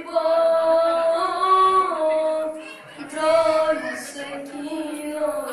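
A boy's solo voice chanting a devotional lament in long, drawn-out sung notes, with a short pause for breath about three seconds in.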